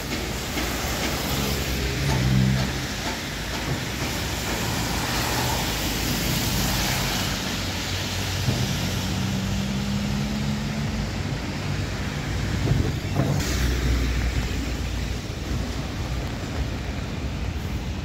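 City traffic on a rain-wet street: steady tyre hiss on wet road with the low hum of passing vehicle engines.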